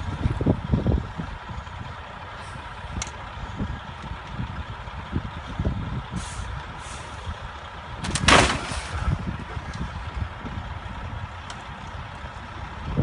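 Storm wind buffeting the microphone in gusts over the rumble of heavy trucks on a snowbound highway, with one short, loud hiss of truck air brakes about eight seconds in.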